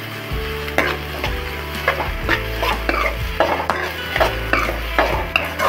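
Metal ladle scraping and knocking against a kadai as chopped onions are stirred in hot oil, with a light sizzle underneath; the scrapes come in a quick, uneven series of about two or three a second. The onions are being sautéed towards golden brown.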